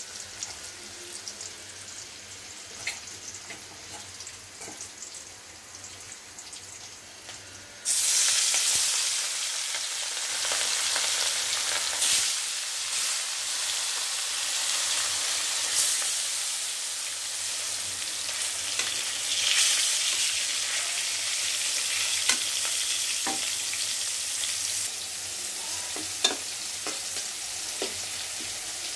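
Food sizzling in hot oil in a metal karahi: sliced onions frying gently at first, then about 8 s in a sudden, much louder sizzle of pieces frying in the oil, which eases down later on. Near the end a metal spatula clicks and scrapes against the pan as the onions are stirred.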